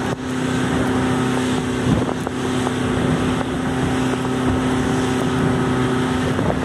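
Motorboat engine running at a steady cruising drone, with wind buffeting the microphone.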